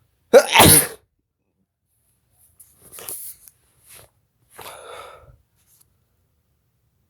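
A man's loud, explosive sneeze about half a second in, set off by sniffing Chhinkni, a sneeze-inducing herbal powder. It is followed by a few much quieter breathy sounds.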